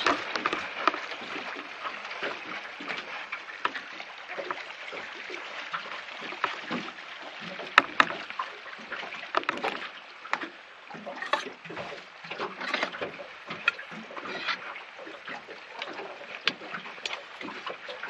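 Small waves slapping and splashing against the hull of a small boat, an irregular run of short splashes and knocks, with one sharper knock about eight seconds in.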